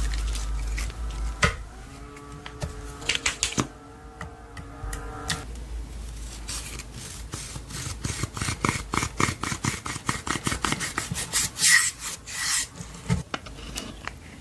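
Slime being squished and worked by hand: a dense run of rapid sticky clicks and pops, thickest in the second half.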